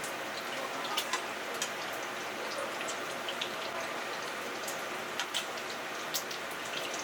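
Food sizzling in a hot pan: a steady hiss with scattered crackling pops.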